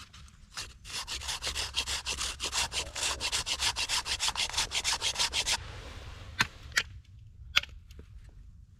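Hand saw cutting through wood with rapid back-and-forth strokes that stop about five and a half seconds in, followed by a few sharp knocks of wood.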